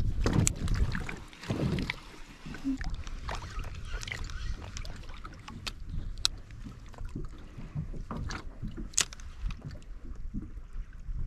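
Small waves lapping against a plastic kayak hull, with wind buffeting the microphone; a few sharp clicks come through now and then, the clearest about six and nine seconds in.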